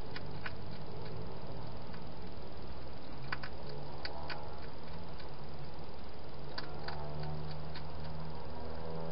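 Wild hedgehog eating from a bowl inside a plastic feeding box: irregular sharp crunching clicks, a few close together, over a steady low hum.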